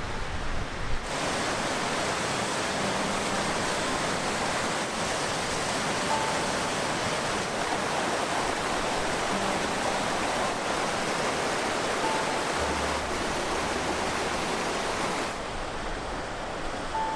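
Glacial meltwater stream rushing out from beneath the ice and over rocks: a steady rush of water, brighter from about a second in and duller again near the end.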